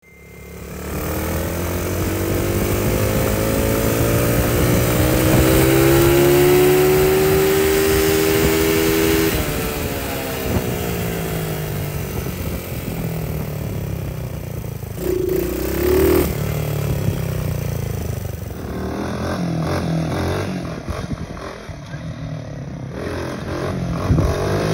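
Small engine on a ride-on vehicle accelerating and running under load, rising in pitch over the first several seconds. With its ignition timing corrected, it runs without the detonation knock, and a light rattle comes from the headlight.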